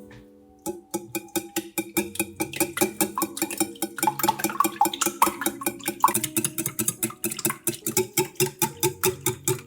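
Rapid, even clicking of a kitchen utensil, about five or six strokes a second, starting just under a second in and getting louder, over soft background music.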